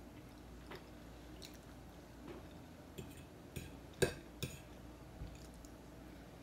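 Metal fork tapping and scraping against a ceramic dinner plate: a handful of light, separate clinks, the loudest about four seconds in.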